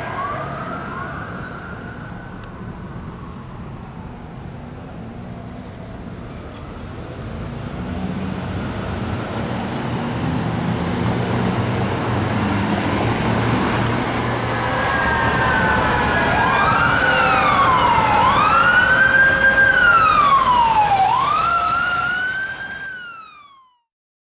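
Emergency vehicle siren worked by hand in wail, over the heavy engine of a passing fire apparatus. A fainter siren fades at first while the engine rumble grows. About two-thirds in, the siren rises and falls in loud, uneven sweeps, then the sound cuts off abruptly.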